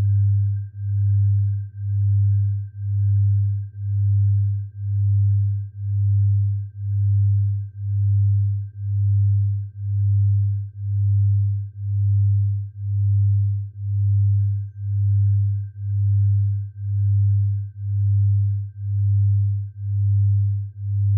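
Electronically generated sound-therapy tone for tinnitus relief: a low pure tone that swells and fades evenly a little more than once a second, with a faint steady high tone above it.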